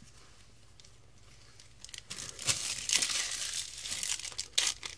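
Foil Yu-Gi-Oh booster pack wrapper being torn open and crinkled in the hands, starting about two seconds in as a dense run of sharp crackles.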